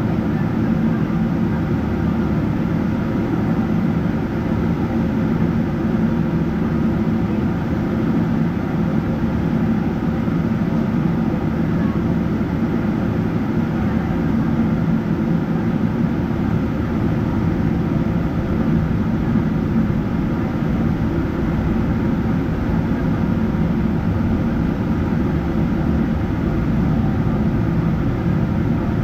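Steady cabin noise inside a Boeing 777-300ER, the drone of its GE90 engines and a low rumble holding even, with no run-up or change in power.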